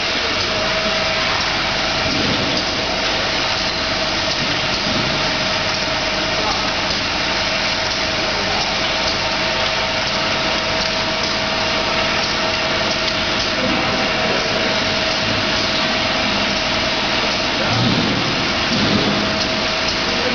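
Automatic eye-drop filling machine running: a steady mechanical noise with one constant tone held through it.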